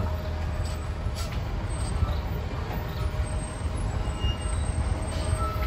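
Diesel engine of a Nissan Diesel truck-mounted mobile crane running with a steady low rumble as the crane creeps down a steep incline.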